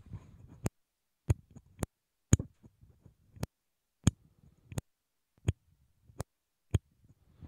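On/off switch of a Pyle PDMICKT34 handheld dynamic microphone clicked hard about ten times, roughly one click every half to three-quarters of a second. The switch noise is picked up by the microphone itself.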